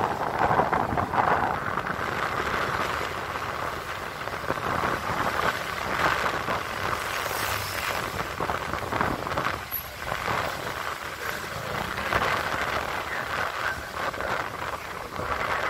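Rushing noise of a vehicle driving along a road, heard from on board, swelling and easing as it goes.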